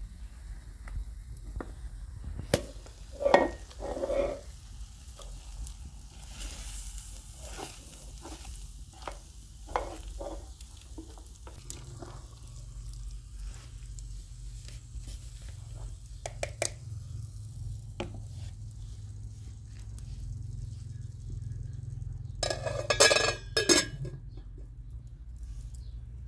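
A spoon stirring and scraping through mashed eggplant, tomato and egg in a metal pan over a wood fire, with the food sizzling and the spoon knocking the pan now and then. A short burst of metal clattering comes near the end, as a metal lid is set on the pot.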